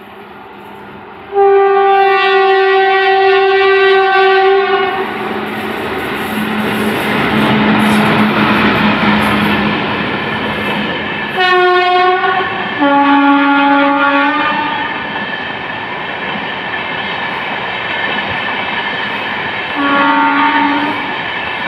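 An Indian Railways WAP-4 electric locomotive hauling an LHB coach rake passes through at speed, its wheels clattering over the rails. Locomotive horn blasts sound over the train noise: a long high-toned blast about a second in, a short high blast and a longer low-toned blast around the middle, and a short low blast near the end.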